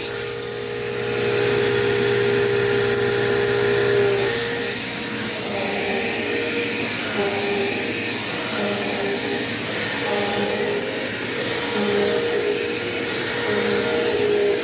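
Dirt Devil Quick Power vacuum cleaner running with a steady motor whine that grows louder about a second in; from about four seconds on, its pitch wavers in a repeating pattern roughly every second and a half.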